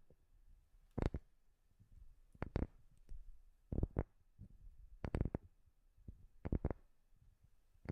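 Tapping on a wooden surface in quick little groups of two or three taps, a group about every second and a half, sharp and short with a slight ring after each.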